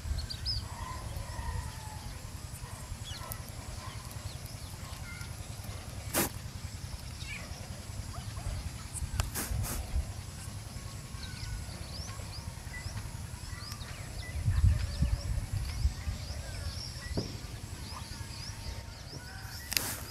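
Outdoor rural ambience: small birds chirping off and on over a steady low rumble, with a few sharp clicks.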